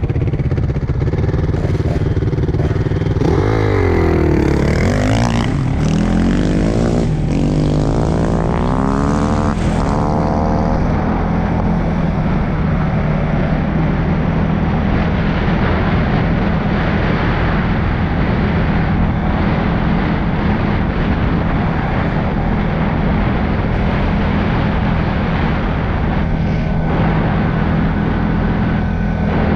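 CFMOTO CFORCE 625S ATV engine running steadily under way on a dirt track. In the first ten seconds a dirt bike engine nearby revs up and down over it, its pitch swooping, then the ATV's steady running is left alone.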